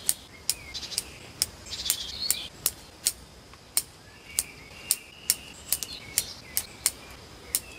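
Small birds chirping and singing in short phrases, over sharp clicks that come about two or three times a second.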